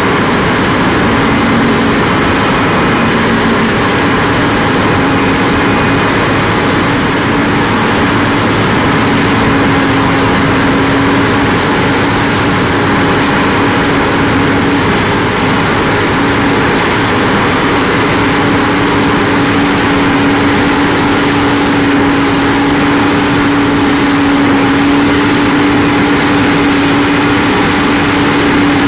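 Heavy diesel engines of asphalt paving machines, a material transfer vehicle and paver fed by a tipper semi-trailer, running loud and steady as they lay asphalt, with a continuous hum and a faint high whine.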